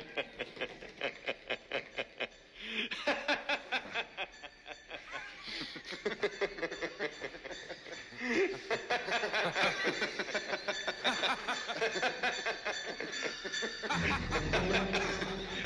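Men laughing in rapid, rhythmic bursts, with a low rumble coming in near the end.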